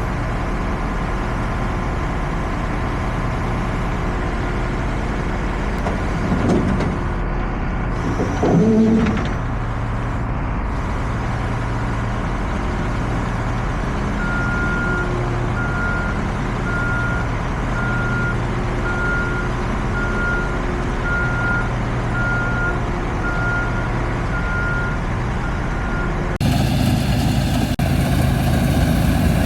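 Heavy diesel farm machinery running steadily, with a reversing alarm beeping about once a second for roughly twelve seconds as a machine backs up. Near the end the sound changes abruptly to a louder, noisier machine sound.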